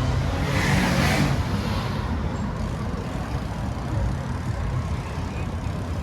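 City street traffic with a steady low engine rumble. A vehicle passes close about a second in, its hiss swelling and then fading.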